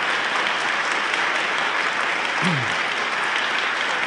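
Audience applauding steadily, with a short falling call from a voice in the crowd about two and a half seconds in.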